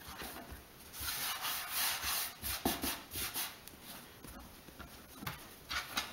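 Hands rolling and pressing a soft bread dough log against a floured wooden board, rubbing and brushing, strongest for a couple of seconds about a second in.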